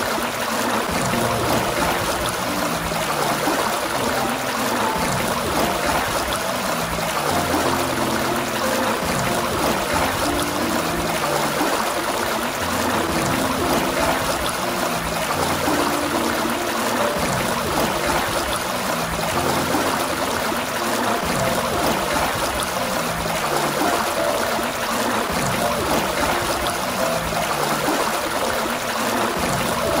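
Water gushing steadily from a fountain, a constant rushing splash with no breaks.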